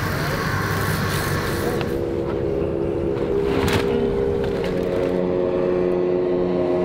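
Water spraying from a boat's washdown hose for about two seconds, then the steady hum of an idling outboard engine, with a single knock near the middle.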